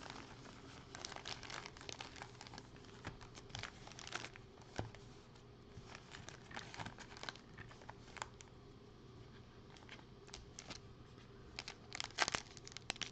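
Foil wrappers of Panini Prizm football card packs crinkling in gloved hands in short, scattered rustles, with a louder burst of crinkling and tearing near the end as a pack is pulled open.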